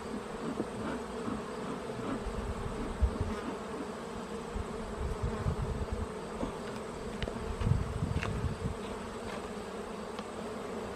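A colony of honeybees buzzing steadily around an opened hive, with a few low bumps from handling the hive or wind on the microphone, the loudest a little under eight seconds in.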